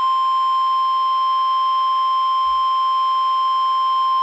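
NOAA Weather Radio warning alarm tone: a single steady high tone that cuts off suddenly near the end, announcing a severe thunderstorm warning.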